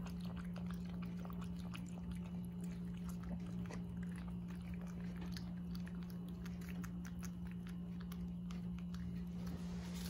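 Jindo puppies lapping water from a plastic bowl: many quick, irregular wet licks and clicks of tongues, over a steady low hum.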